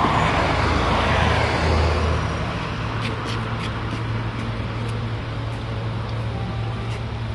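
City street traffic: a vehicle passes in the first two seconds, over a steady low engine hum.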